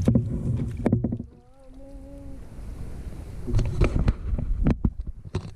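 Low rumbling noise with knocks and clicks, typical of wind and handling on an action camera's microphone, in two loud stretches with a quieter pause between them. A faint wavering tone sounds briefly in the pause, about a second and a half in.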